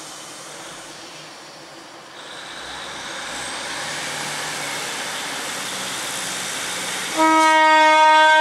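Class 156 diesel multiple unit approaching, its rumble growing louder. About seven seconds in, its horn sounds one loud, steady note, the first of its two tones.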